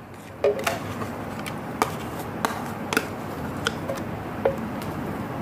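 Metal spoon scraping and tapping against a plastic measuring cup and the blender jar as thick mayonnaise is scooped in: a string of sharp clicks every half second to a second, over a steady hiss.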